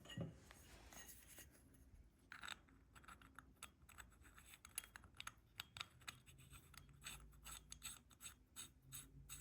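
Faint, quick clicks, ticks and scrapes of small metal carburetor parts being handled: the plug and gasket being fitted to the bottom of a Mikuni carburetor's float bowl before it is tightened. The clicks come thickest in the second half.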